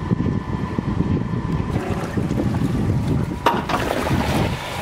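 A small fishing boat under way: wind rumbles on the microphone over the steady whine of the boat's motor. About three and a half seconds in there is a sharp clack, followed by a brief rushing swish as a cast net is thrown out.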